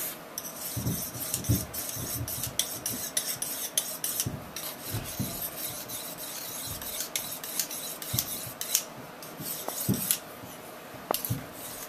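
Hooked linoleum knife blade being honed on the rounded edge of an oiled soft Arkansas slip stone held in the hand: repeated short rubbing strokes of steel on stone.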